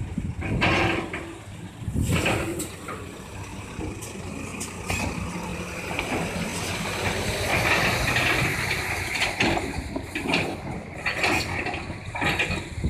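Caterpillar 320C excavator at work: its six-cylinder diesel engine runs under load, with knocks and clanks from the bucket and arm and a rushing noise in the middle, like soil pouring.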